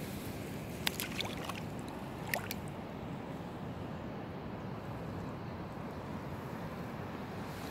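Water splashing as a caught pike is released from a hand into shallow water and swims off, with a few short sharp splashes in the first three seconds over a steady rush of background noise.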